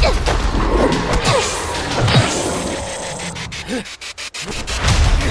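Action-film fight sound effects: scraping and crashing hits mixed with short gliding cries over a music score. The mix drops almost to nothing for a moment about four seconds in, then a heavy impact lands.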